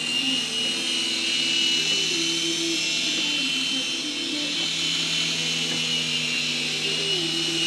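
Toy RC helicopter flying, its small electric motors giving a steady high whine over a lower rotor hum that rises and falls a little in pitch as the throttle changes.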